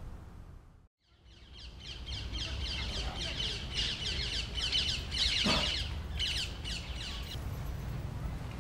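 Birds chirping: a rapid run of high, downward-sweeping chirps that starts about a second in and dies away near the end, over a steady low rumble.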